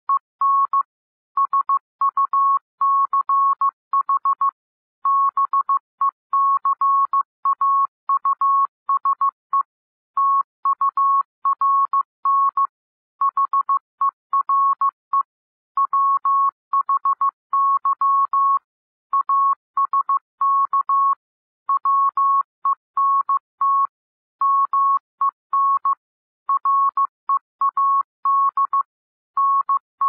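Computer-generated Morse code practice tone at about 15 words per minute: a single-pitch beep keyed into dots and dashes, with short pauses between words. It spells out common English words such as 'because', 'turn', 'here', 'why', 'ask', 'went', 'men'.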